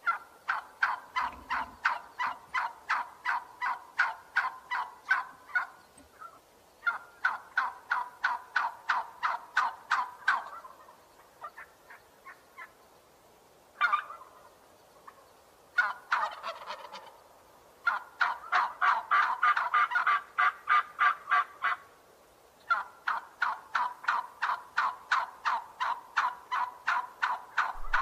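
A turkey calling in long runs of rapid, evenly spaced notes, several bouts separated by short pauses.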